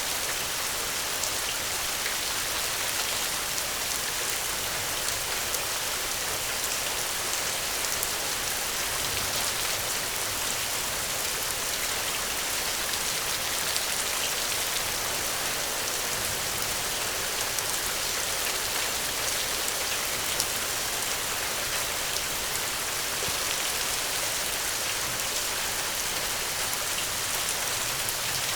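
Steady rain falling, an even hiss dotted with the small patter of drops.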